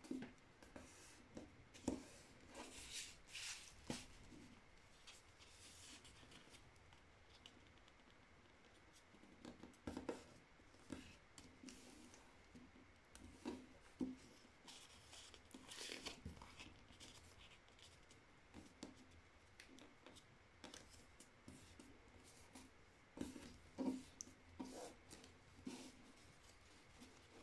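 Faint rustling, scraping and soft taps of a sheet of printer paper being folded and creased by hand on a cloth-covered surface, coming in irregular spells a few seconds apart.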